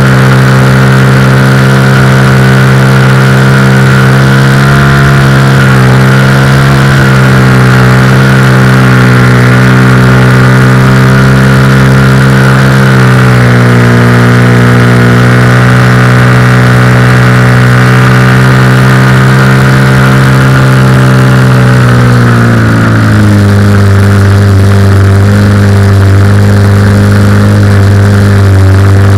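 Cougar 2000 model aircraft's motor and propeller running steadily in flight, its pitch dropping to a lower steady note about 23 seconds in as the throttle is eased back, with wind rush over it.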